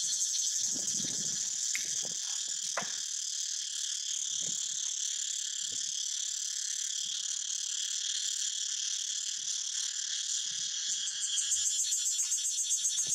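A steady, high-pitched chorus of insects, growing a little louder near the end, with a few faint, brief rustles and knocks in the first few seconds.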